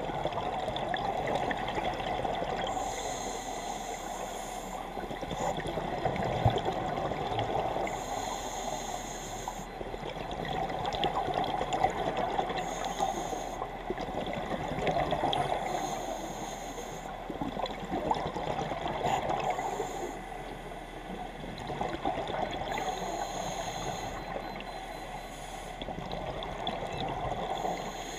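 Scuba regulator breathing underwater, heard through the camera housing. Exhaled bubbles gurgle out in slow swells of a few seconds each, with a thinner hiss between them, repeating about every five seconds.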